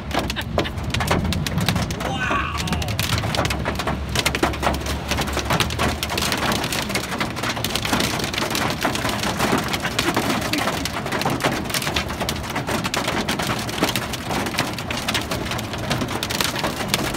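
Marble-sized hail pelting a car's roof and windshield, heard from inside the cabin as a dense, unbroken clatter of small hits.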